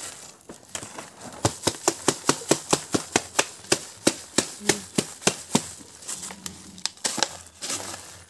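A run of sharp, evenly spaced clicks, about four a second, from a hand working at the mouth of a terracotta pot packed with leaves. Near the end there is a rustle as coarse salt is poured out of a bag onto a tray.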